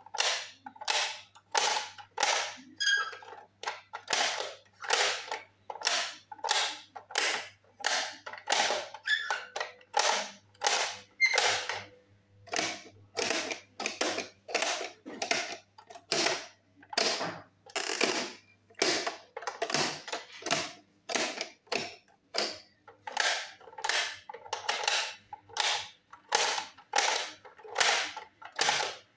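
Plastic pop-up toys clicking as their buttons are pressed, the spring-loaded figures snap up and are pushed back down. The sharp clicks come about two a second.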